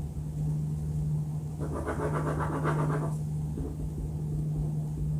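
A steady low hum with a low rumble beneath it. About a second and a half in, a pen scratches on paper for about a second and a half.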